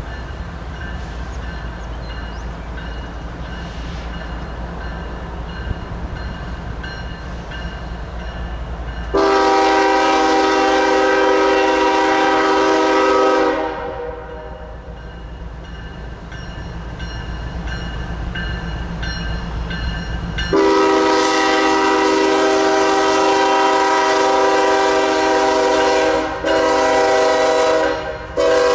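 A GE ES44AC diesel locomotive leading a CSX train sounds its air horn, a chord of several tones. There is one long blast about nine seconds in, and a second long blast from about twenty seconds in, broken by two short gaps near the end. Under it is the low rumble of the approaching locomotives.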